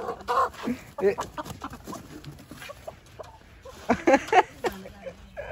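A hen clucking and squawking in short calls, loudest about four seconds in, as it is caught and lifted out of its coop, among scrapes and knocks from the coop's hatch.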